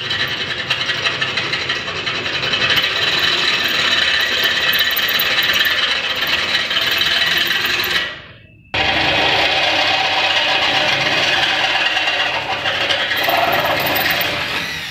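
Handheld electric drill boring into the metal frame of a lift door operator. It runs steadily for about eight seconds and winds down, stops briefly, then runs again and winds down near the end.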